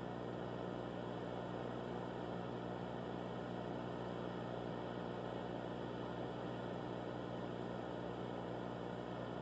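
Steady hiss with a low electrical hum underneath, an unchanging static bed with no events in it.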